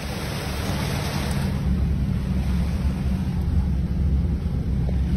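A vehicle ploughing through deep floodwater: loud rushing and splashing of water against the body over a steady low engine hum, swelling over the first second.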